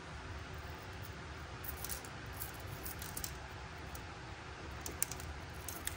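Miniature toy chocolate chips sprinkled by hand onto a tiny plastic plate and tabletop: scattered light ticks and clicks, the sharpest about five seconds in, over a faint steady hiss.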